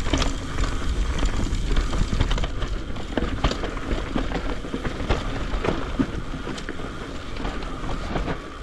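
Mountain bike riding down a dirt trail: wind buffeting the action-camera microphone in a steady low rumble, with the bike knocking and rattling over bumps.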